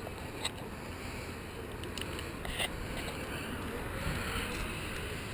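Wind buffeting the microphone outdoors, a steady low rumbling noise, with two short clicks, one about half a second in and one near the middle.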